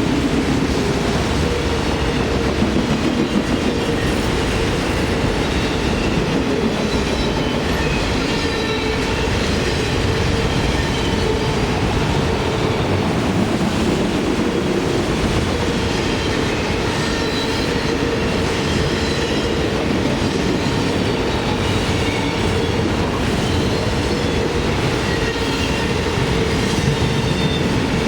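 Railroad cars of a passing train rolling steadily along the tracks, with a continuous rumble and faint, brief wheel squeals.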